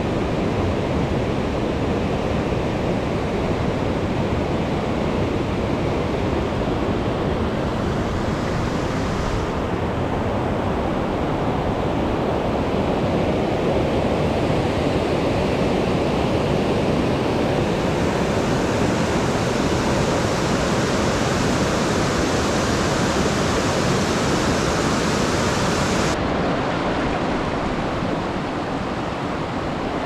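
Alpine mountain river rushing over rocks and rapids: a loud, steady white-water noise. Its hiss brightens and dulls abruptly a few times.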